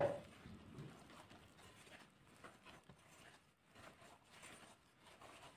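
A bare hand mixing flour, water and salt into a shaggy dough in a glass bowl: faint, irregular soft rubbing and pattering.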